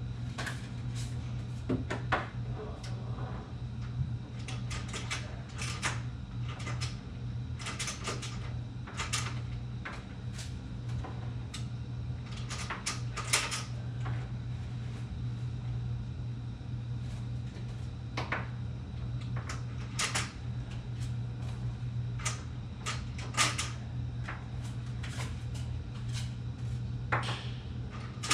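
Vertical blinds being handled at the window: irregular clusters of light plastic clicks and rattles from the vanes and headrail, over a steady low hum.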